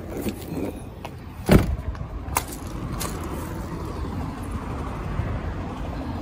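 Handling and movement noises as someone gets out of a van cab and goes round to the engine bay: a loud knock about a second and a half in, a couple of sharp clicks, then a steady low hum.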